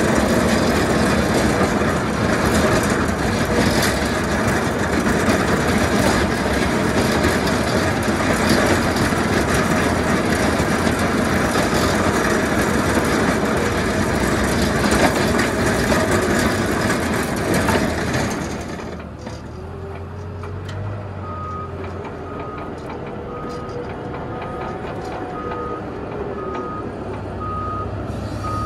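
Tractor's front-mounted snow plow blade scraping along the packed snow and ice of the road over its engine, loud and steady, then dropping away about eighteen seconds in to the engine running more quietly. A reversing alarm then beeps about once a second.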